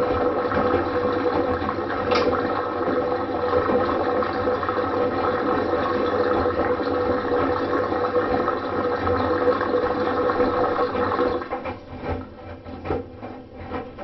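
LG Direct Drive front-loading washing machine running a quick-wash cycle: a steady motor hum with water churning in the drum. About eleven seconds in, the steady running stops and only uneven splashes and knocks remain.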